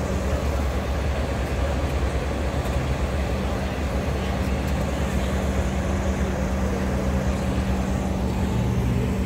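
Street traffic noise with a steady low engine hum running throughout.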